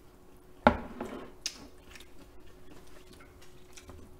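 Eating utensils clinking against a bowl: one sharp, loud clink less than a second in, a lighter one about a second later, and a few faint taps.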